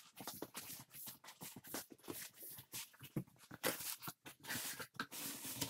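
Cardboard shipping box being opened by hand, its flaps pulled apart: faint, quick, irregular scraping and rustling of cardboard.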